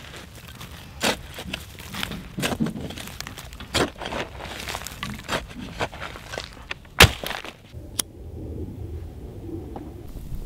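Kindling being snapped and laid in a rock fire ring: a run of sharp cracks and knocks of wood and charcoal, the loudest about seven seconds in, giving way to a softer steady noise near the end.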